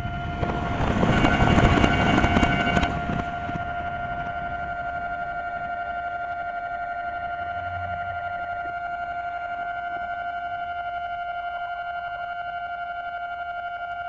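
Japanese level-crossing alarm at a Tobu Tojo Line crossing, sounding its steady, rapidly repeating electronic ding while the gates are down. For about two and a half seconds near the start, a loud rushing noise with a low rumble sounds over it.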